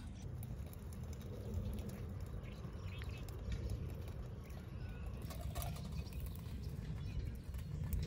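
Wood fire crackling in a camping fire pit: faint, irregular pops and snaps over a low steady rumble.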